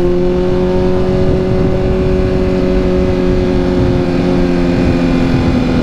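Honda CBR1000RR's inline-four engine running at steady revs, its pitch easing down slightly toward the end, with wind rumble on the microphone.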